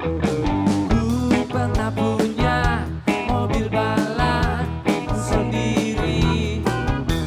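Live rock band playing a song, with electric bass, guitar and drums, the drums striking at a regular beat.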